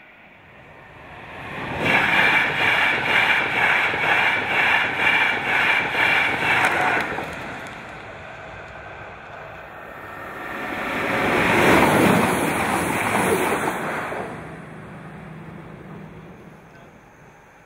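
Railway level crossing warning alarm sounding in a rapid pulsing yodel for about five seconds, then cutting off. A few seconds later a train passes, its noise swelling to a peak and fading away.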